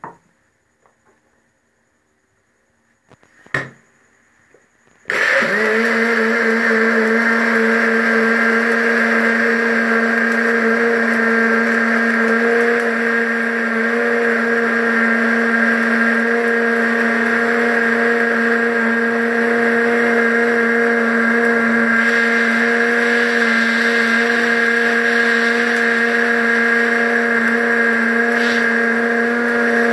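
A single knock, then about five seconds in an electric countertop blender switches on and runs steadily at full speed, mixing sugar into blended falsa juice.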